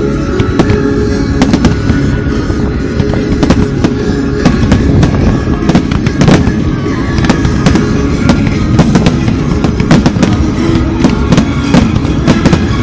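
Aerial firework shells bursting in the finale of a display: loud, irregular bangs, often several a second, going on without a break.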